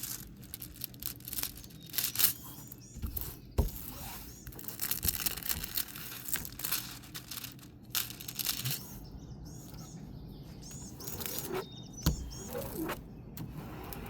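Crinkling and rustling of plastic packaging being handled and unfolded, with scattered sharp crackles.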